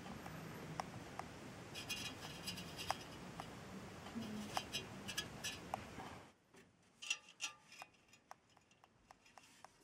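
Scattered light clicks and taps of small parts being handled, over a faint hiss that drops away about six seconds in.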